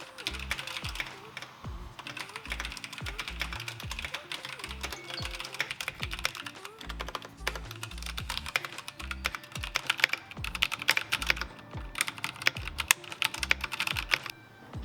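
Keychron K12 mechanical keyboard with Keychron switches and thick keycaps being typed on quickly, a dense run of key clacks that gets busier in the second half. Background music with a steady bass plays underneath.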